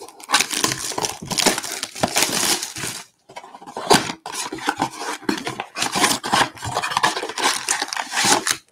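Cardboard trading-card blaster box being torn open by hand: crackling, tearing and scraping of the carton, with a short break about three seconds in.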